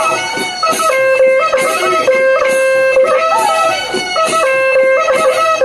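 Bihu folk music: repeated drum strokes under a high melody of held notes that bend and slide between pitches.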